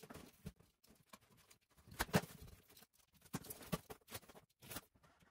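A utility knife scraping and cutting through packing tape and cardboard on a parcel box, in scattered scratches and crackles; the loudest comes about two seconds in.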